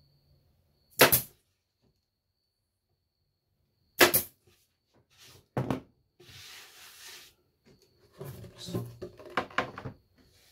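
Pneumatic nail gun firing fasteners through a pallet-wood panel into a wooden door frame: two loud sharp shots about one and four seconds in and a softer one near six seconds. Then a brief hiss and a run of knocks and clatter as the door is handled on the bench.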